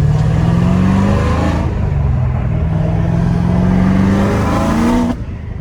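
Supercharged LT4 V8 of a C7 Corvette Z06, breathing through Kooks 2-inch headers, a 3-inch x-pipe and stock mufflers, pulling hard under acceleration: the pitch climbs, drops at an upshift about one and a half seconds in, climbs again, and cuts off sharply near the end.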